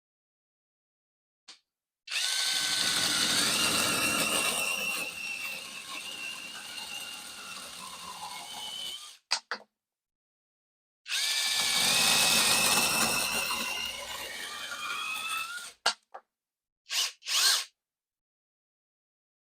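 Cordless screwdriver driving a chainsaw attachment, run twice for several seconds each. Its whine wavers and drops in pitch as it runs. A couple of short knocks follow near the end.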